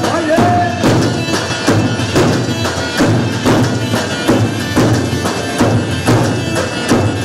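Turkish folk dance music for a halay: a steady, loud drum beat under a reedy wind melody.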